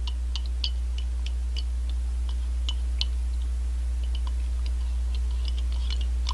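A spoon stirring hot coffee in a ceramic mug, clinking against the sides in light, irregular taps a few times a second as a piece of dark chocolate melts in it. A steady low hum runs underneath.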